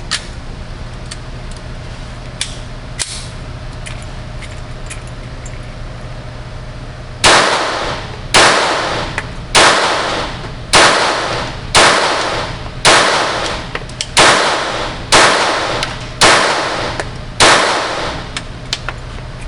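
Stoeger Luger .22LR pistol firing Remington Golden Bullet rounds: ten sharp shots about one a second, starting about seven seconds in. Before the shooting there are a few light clicks of the pistol being handled.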